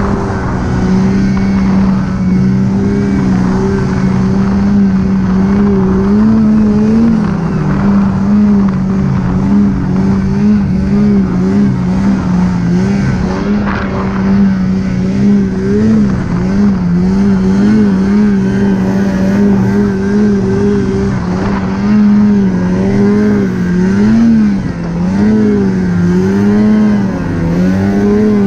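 Polaris snowmobile engine running hard under steady throttle, its pitch wavering up and down as the throttle is worked.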